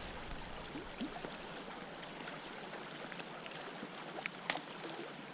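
Small creek running steadily, with a few faint scattered clicks and one sharper tick a little over four seconds in.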